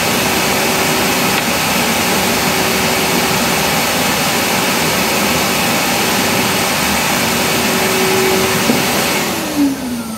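Bandsaw running steadily with no cut under way, a loud even whir with a steady hum; near the end it is switched off and winds down, its hum falling in pitch.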